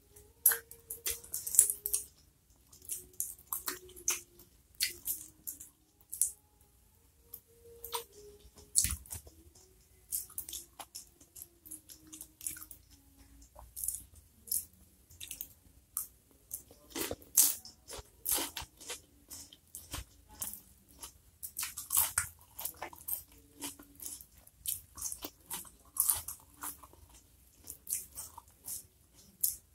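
A person chewing and biting food close to the microphone: irregular wet clicks and crunches, a few a second.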